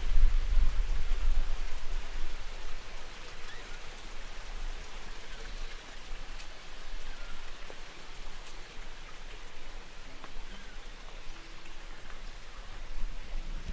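Rain falling steadily, with single drops ticking now and then. A low rumble in the first second or two then fades.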